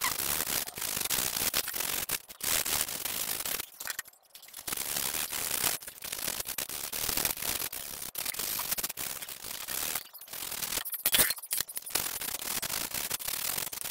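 Hand sanding with coarse 80-grit sandpaper over body filler (putty) on the steel tubes of a motorcycle luggage carrier: a continuous run of rough, rasping back-and-forth strokes, broken by a few brief pauses.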